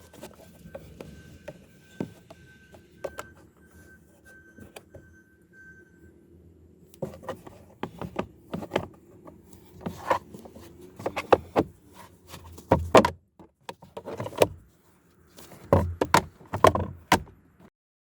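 Hard plastic trim being handled: a string of clicks, knocks and rubs as the cabin air filter cover and glovebox parts are fitted and pushed into place. A faint repeating high beep sounds during the first five seconds.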